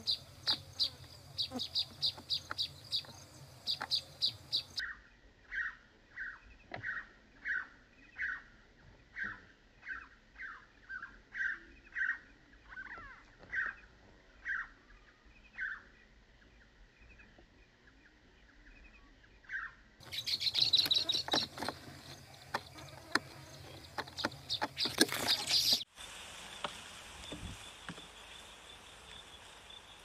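Birds chirping and calling in a string of changing bursts. Quick high chirps come first, then a repeated lower note about twice a second. A louder spell of dense chattering follows about two-thirds of the way through, and a faint steady high hiss comes near the end.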